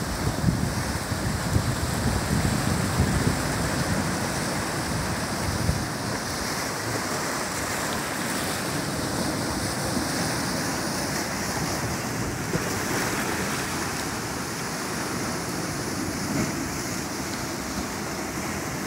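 Ocean surf breaking and washing over dark volcanic rocks on a rocky shore: a continuous rush of water and foam, heavier and more surging in the first several seconds, then a steadier wash.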